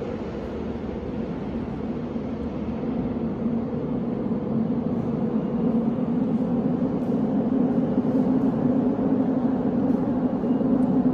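Subway train approaching through the tunnel: a steady low rumble that grows gradually louder.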